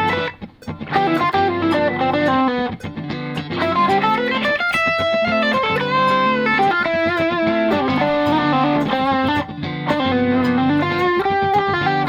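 Ibanez AZ2204 electric guitar playing a continuous single-note melodic line in D Dorian, with sustained notes and some notes gliding in pitch.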